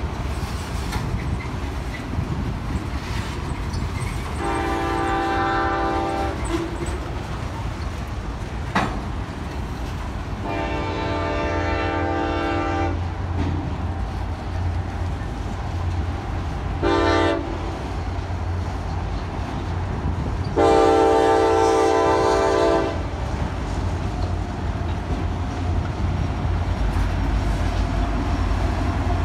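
Freight cars rumbling and clacking steadily past, while a diesel locomotive's multi-tone air horn sounds four times: long, long, short, long, the standard grade-crossing signal.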